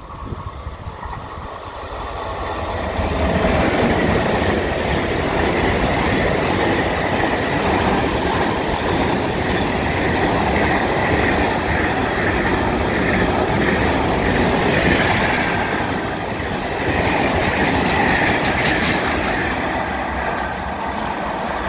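Container freight train rolling past, its wagon wheels rumbling and clattering on the rails. The sound builds over the first few seconds, then stays loud and steady as the wagons go by.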